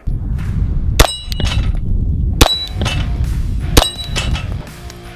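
Three pistol shots about 1.4 seconds apart, each followed by a ringing clang from a 3/8-inch AR550 steel target plate being hit. A steady low rumble runs underneath.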